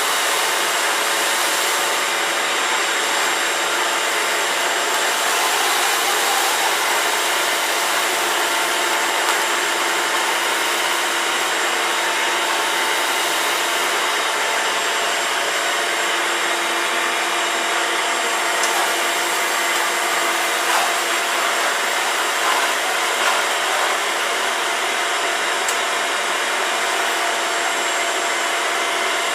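Vacuum cleaner running steadily, a constant whooshing whine that holds the same pitch throughout, with no starts or stops.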